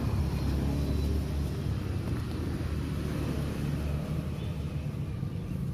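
Low, steady motor rumble, an even hum without rises or falls.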